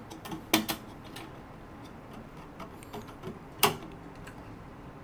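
Scattered light clicks and metallic knocks as a band saw blade is worked by hand onto the mini band saw's wheels and guide bearings, with two sharper knocks about half a second in and a little past three and a half seconds.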